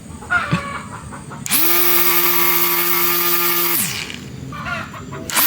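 Small electric motor of a homemade mini grass cutter spinning up to a steady high whine with a loud rushing noise, running for about two seconds, then winding down; it starts up again near the end.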